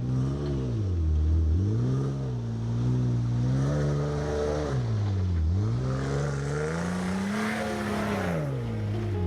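Engine-like drone revving up and down. The pitch drops sharply and climbs back three times, about every four seconds.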